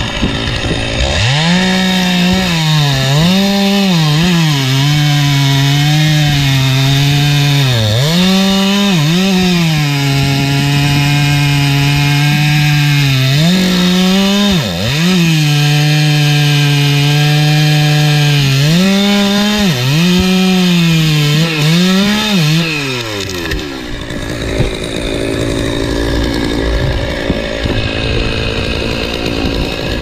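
Chainsaw cutting through large maple wood. The engine note holds steady and lower while it is loaded in the cut and rises briefly several times as the saw revs up between cuts. About 23 s in the engine note falls away and a rough noise with no clear pitch carries on for several seconds before the saw revs again at the end.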